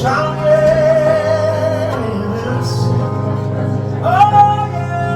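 Gospel praise-and-worship music: a singer holds a long note with vibrato, then slides up into another held note about four seconds in, over sustained accompaniment chords.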